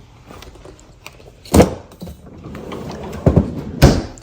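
Household knocks and clunks: three sharp knocks, one about a second and a half in and two close together near the end, with light clicks and rustling between, as groceries and kitchen things are handled and set down.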